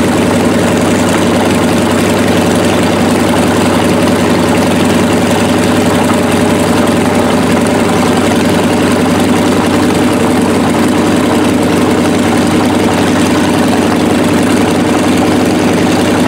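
Yakovlev Yak-52's nine-cylinder radial engine idling steadily with the propeller turning, during a ground engine run after start-up.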